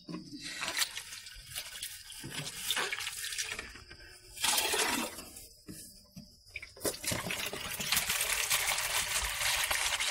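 Water splashing and sloshing in a plastic basin, then a steady pour of water from a plastic jerrycan into the basin from about seven seconds in.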